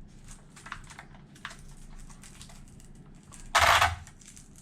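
Small clicks and fiddling with the RC car's batteries and parts, then a loud ripping sound lasting about half a second, about three and a half seconds in: a hook-and-loop battery strap being pulled tight.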